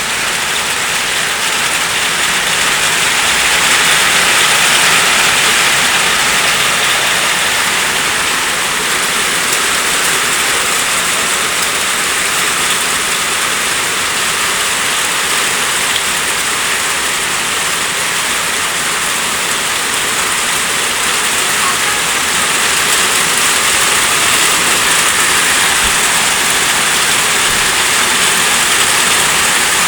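Rain falling steadily, a dense even hiss with no letup.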